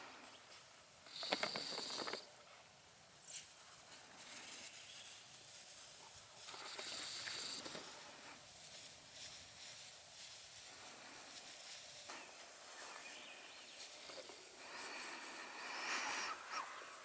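Bordoodle puppies playing on grass: scuffling and rustling with a few short puppy noises, the loudest burst about a second in and another near the end.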